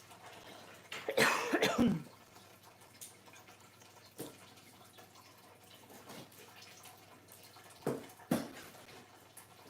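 A single cough about a second in, then a few light knocks near the middle and the end, over the steady trickle of a turtle tank's running water.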